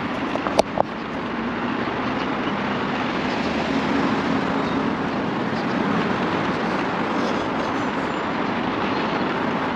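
Steady street traffic noise, with two short sharp clicks a little under a second in.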